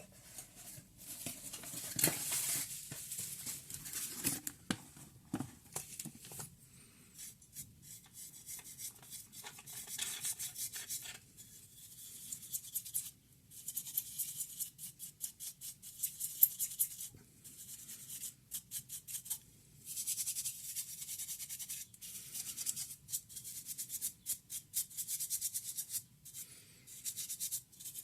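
Hands-on work on a laptop's internals: bursts of quick scratching and rubbing strokes, several a second, with scattered clicks between them.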